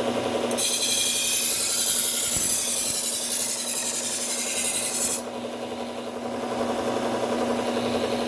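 Bucktool low-speed belt sander running with a Cubitron P120 belt, a steady hum throughout. About half a second in, a steel Henckels kitchen knife blade is pressed to the belt and ground with a loud hissing rasp for about four and a half seconds, then lifted off suddenly, leaving only the sander's hum. The coarse belt is apexing the dull edge.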